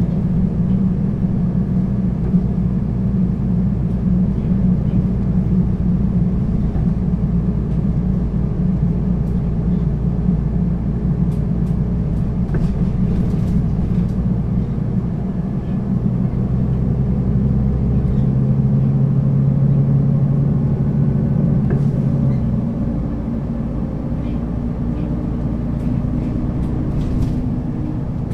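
Mercedes-Benz O 530 G Citaro articulated city bus running with its diesel engine and Voith automatic gearbox: a steady, loud drone whose pitch rises slowly through the second half as the bus picks up speed. A low hum holds for several seconds and stops about two-thirds of the way in. There are a few light clicks and rattles.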